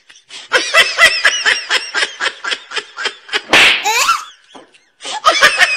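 A person laughing hard in quick repeated bursts, with a short harsh burst about halfway through and a brief pause before the laughter starts again near the end.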